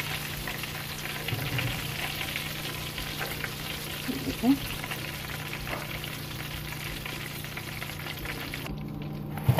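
Hot oil sizzling and crackling steadily in a frying pan, where flour-coated chicken pieces have been frying and are being lifted out. The crisp high crackle drops away near the end.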